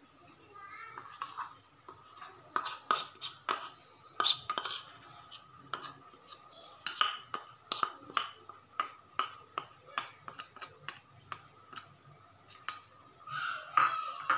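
Metal spoon clinking and scraping against bowls as it scoops thick chili paste. It makes an irregular string of sharp clicks, several a second, with a longer scrape near the end.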